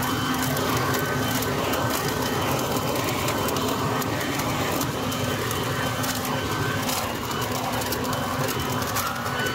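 Portland 12-amp electric blower/vacuum/mulcher running steadily in vacuum mode, with a rush of air over a constant motor-and-impeller whine. Scattered ticks come from leaves being sucked in and chopped up.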